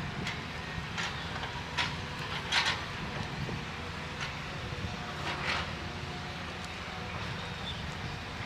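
An engine runs steadily at a low hum, with a few short knocks and clatters on top, the loudest about two and a half seconds in.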